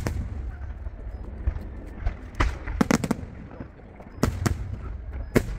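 Fireworks going off: sharp bangs in small clusters, a couple about two and a half seconds in, another pair around four seconds in and one near the end, over a steady low rumble.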